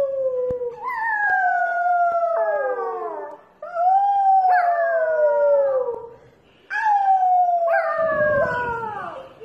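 Small dog howling: several long howls, each sliding downward in pitch.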